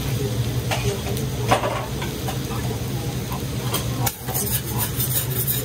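Metal spatulas scraping and clacking on a hot teppan griddle as Hiroshima-style okonomiyaki sizzles, with a brighter burst of sizzling about four seconds in, over a steady low hum.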